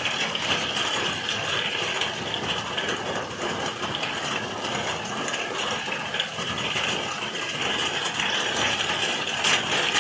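Heavy rain falling steadily, a dense patter of drops and drips, with a few sharper ticks near the end.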